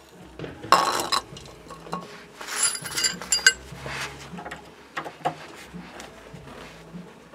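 Metal tools clinking and scraping against the nut and threaded stud of a car's anti-roll bar link, in short irregular bursts with the loudest around one second in and again around three seconds in, as a ring spanner is fitted onto the seized nut.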